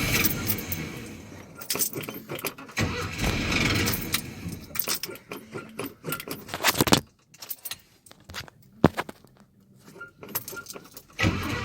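Old Chevy pickup truck's engine being started and run, with keys jangling. About seven seconds in it goes quiet apart from a few sharp clicks, and the engine sound comes back near the end.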